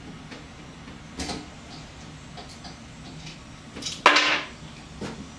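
Scattered metallic clicks and ticks of a valve spring compressor and valve spring parts being worked on a cylinder head, with one loud clack about four seconds in.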